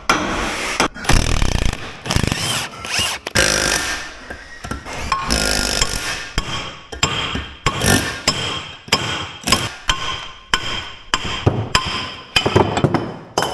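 Hand tools working on metal: irregular knocks, clanks and scraping, with a couple of longer noisy stretches, one about a second in and one about five seconds in.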